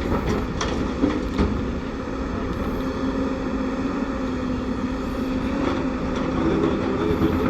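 A heavy diesel engine running steadily with a low hum, with a few short knocks in the first second and a half.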